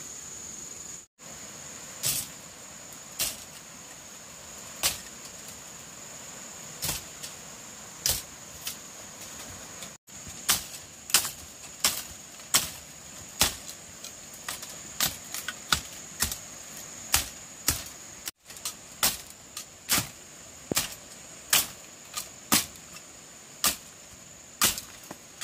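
Sharp knocks or clicks at irregular intervals, few at first and then about one to two a second, over a steady high-pitched insect drone.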